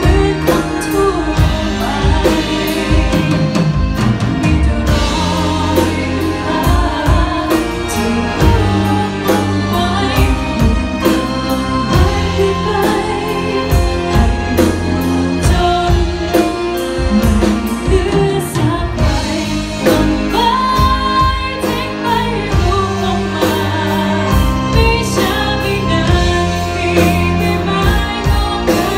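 A woman singing live into a microphone, backed by a band of keyboard and electric guitar, in one continuous song.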